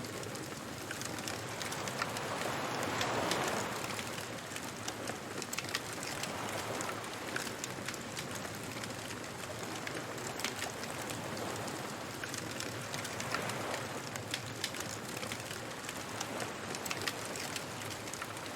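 Beach bonfire ambience: a wood fire crackling with frequent small pops, over the wash of surf, with a wave swelling about three seconds in.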